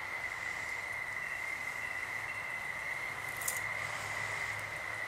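Crickets trilling steadily over a hiss, with a brief faint click about three and a half seconds in.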